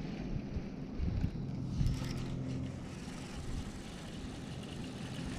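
Wind rumbling on the microphone, with a faint steady hum underneath.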